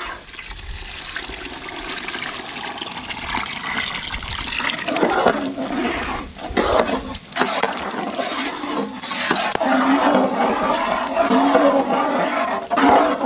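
Tamarind water mixed with masala being poured into a large cooking pot: a steady rush of splashing liquid that builds over the first few seconds and surges a few times.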